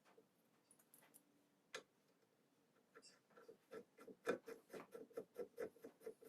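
Faint, quick ticking, about six clicks a second, starting about halfway through after a single click, in an otherwise near-silent room.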